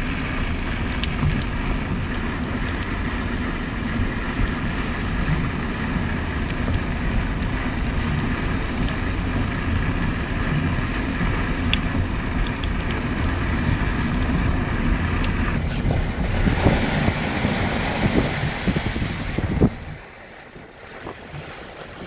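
Wind rumbling and buffeting on the microphone, a steady low roar. Near the end it turns hissier for a few seconds, then drops off sharply.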